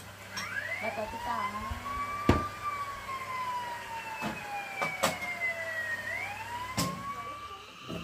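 A siren-like wailing tone that sweeps up quickly, sinks slowly over about four seconds, then sweeps up again near the end, with a few sharp knocks, the loudest about two seconds in.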